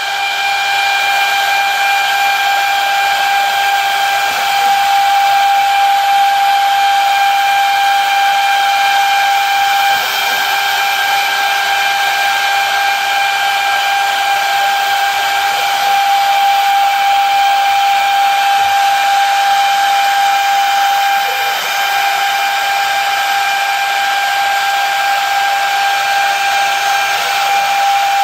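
CNC machine spindle milling aluminium: a steady high-pitched whine with a hiss beneath it, dipping briefly twice.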